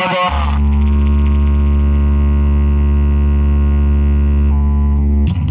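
Large DJ speaker cabinets playing a loud, steady, very deep electronic bass drone with a buzzy stack of overtones. It starts just after the start and cuts off near the end.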